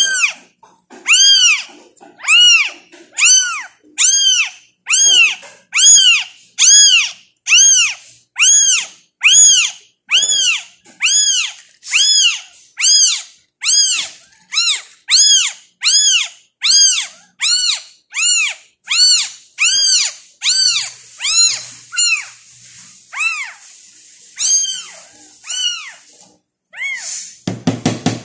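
A very young tabby kitten mewing over and over while it is held for bottle-feeding, about three high-pitched cries every two seconds, each rising then falling in pitch. Near the end the cries grow fainter and more spaced out.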